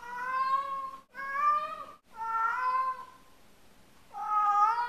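A domestic cat meowing in long, drawn-out calls: three in a row, a short pause, then a fourth near the end. The cat has been left alone and is calling out for its absent owner.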